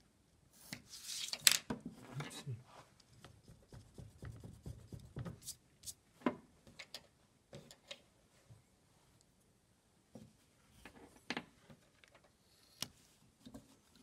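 A ruler and pencil handled on paper and card: a scratchy rustle about a second in, then scattered light clicks and taps as they are moved and set down.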